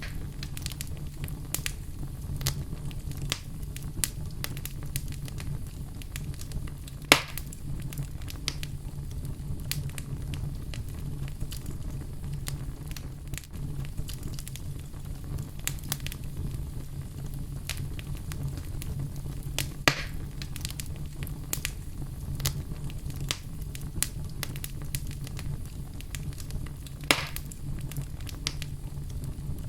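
Fireplace log fire crackling, with many small snaps over a steady low rumble and three louder pops spread through.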